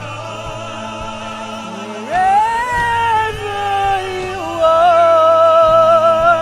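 A solo singer over a sustained backing accompaniment. The voice swoops up about two seconds in, then holds a long high note with vibrato near the end.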